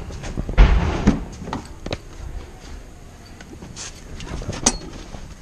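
Irregular knocks and clicks from footsteps and a handheld camera being moved about, with a heavier thump about half a second in.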